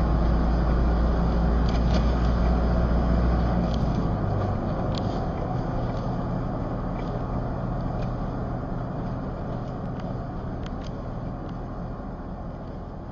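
A car driving, its engine and road noise making a steady rumble. The deep low rumble drops away about four seconds in, and the sound then slowly fades out.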